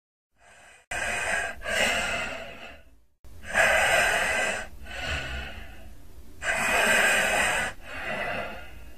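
Heavy, deep breathing close to the microphone: three slow in-and-out breaths, each breath a loud rush of air.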